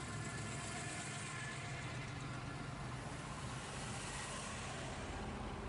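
Cars cruising slowly past one after another, engines running at low speed over tyre noise. The deep engine rumble of the nearest car fades about a second in.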